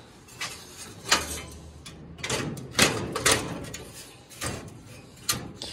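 Hands handling the parts of a mock-up aircraft instrument panel: a series of irregular knocks and scrapes against a ribbed cover and perforated panels, with light rustling in between.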